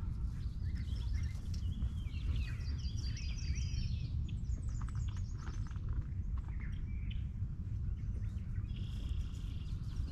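Birds chirping and singing in quick, varied phrases over a steady low rumble, the chirping busiest in the first half.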